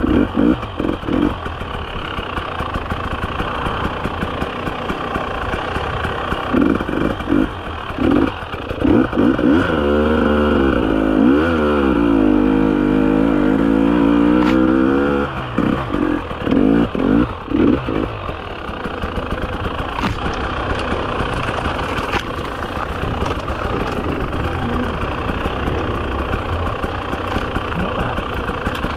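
300 cc two-stroke TPI enduro motorcycle ridden slowly on a technical trail. The engine runs at low revs with repeated short throttle blips, and in the middle a longer burst of revs rises and falls.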